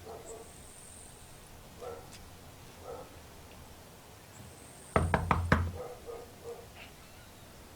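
A rapid series of about five knocks about five seconds in, with a few faint short barks from a dog around them.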